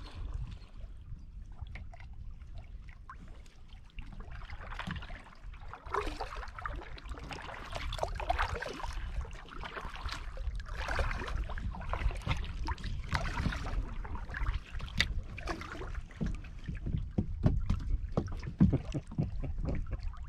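Lake water splashing and sloshing against a kayak in swells about every two seconds, with light knocks on the hull and a steady low rumble underneath.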